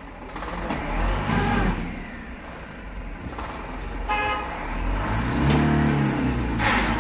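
Motor vehicle engine running, revving up and back down about five to six and a half seconds in, with a short horn toot about four seconds in.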